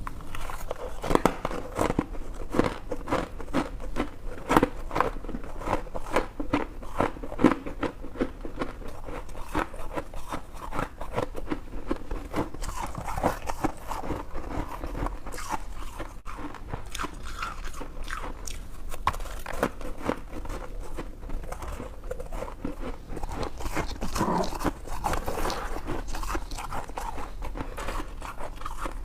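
A person biting and chewing white freezer ice from a mini fridge, a continuous run of crisp crunches in quick succession.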